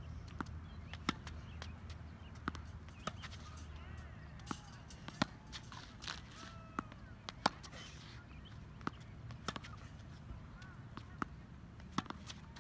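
Tennis balls bouncing on a hard court and being struck with a racket during a forehand drill: an irregular string of sharp pops and knocks, some louder than others.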